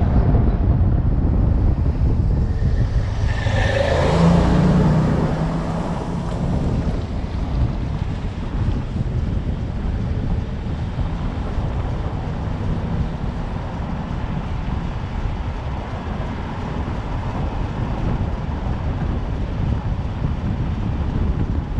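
Steady low road and engine rumble heard from a moving vehicle, with wind buffeting the microphone. About four seconds in, a louder engine hum swells for a couple of seconds and then fades.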